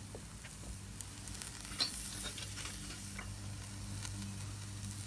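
Raw beef ribs sizzling on the grate of a small charcoal kettle grill over hot coals, with scattered crackles and pops, for a brief flame sear. A steady low hum runs underneath.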